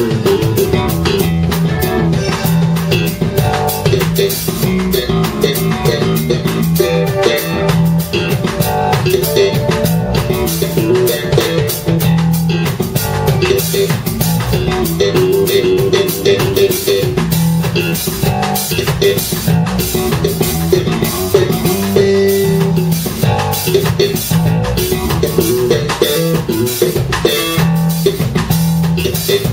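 A live instrumental band playing: guitar and electric bass over a steady drum-kit beat, with dense cymbal and drum hits.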